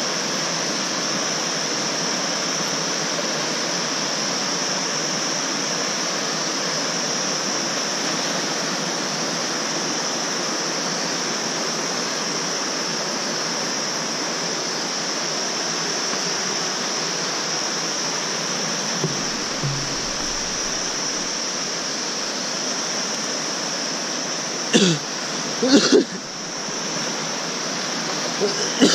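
Shallow mountain river rapids rushing over rocks: a steady hiss of whitewater. Near the end a couple of short, louder sounds rise above it.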